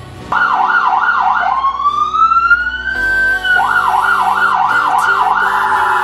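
Electronic vehicle siren switched through its tones: a fast yelp sweeping up and down about three times a second, then a slow rising wail, the yelp again, and a very rapid warble near the end.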